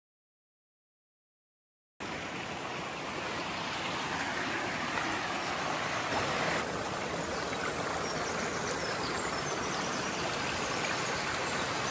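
Silence for about two seconds, then the steady rush of a mountain stream flowing over rocks.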